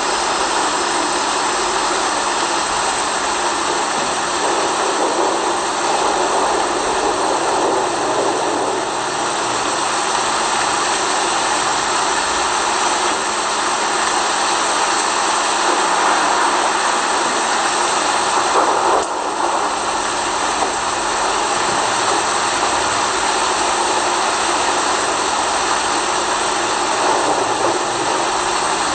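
Steady rain, a dense even hiss with no breaks, briefly louder about nineteen seconds in.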